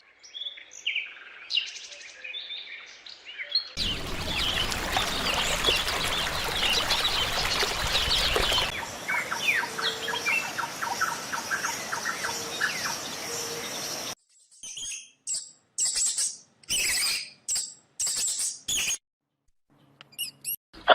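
Birds chirping and calling, in several abruptly cut segments: scattered chirps, then a dense chorus of many chirps, then a string of separate short calls with gaps between them near the end.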